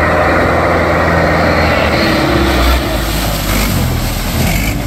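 Diesel tractor engine running hard as the tractor drives through mud, its engine note shifting about two seconds in.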